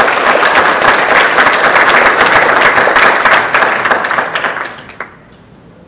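Audience clapping in applause at the end of a talk, dying away about five seconds in.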